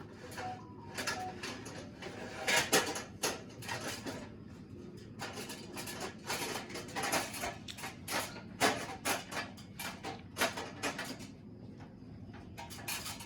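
Irregular knocks, clatter and scraping, many short hits scattered through, the loudest about two and a half seconds in and near nine seconds.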